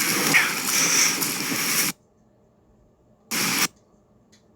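Steady hiss of rain noise on the microphone that cuts out abruptly to near silence about two seconds in; a short burst of the same hiss returns in the middle, then the sound drops out again, like audio dropouts in a live stream.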